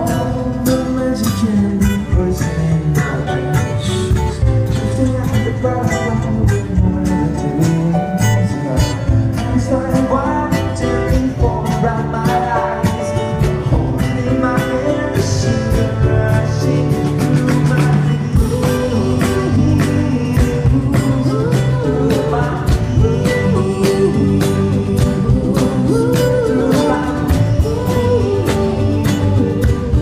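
A live band playing at a sound check: acoustic guitar strumming over stage keyboard, bass and a drum kit keeping a steady beat, in a country-leaning style.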